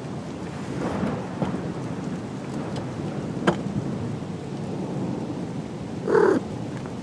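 Steady rain with a low rumble and a couple of sharp taps, then one short cat meow about six seconds in, the loudest sound.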